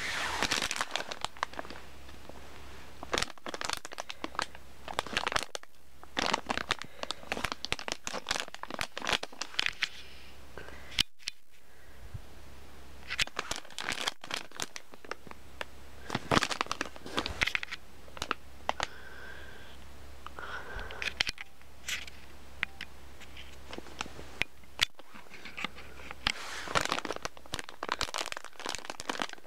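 Clear plastic and card blister packaging of a small toy railway signal crinkling and crackling as it is handled and opened by hand, in irregular spells with short pauses.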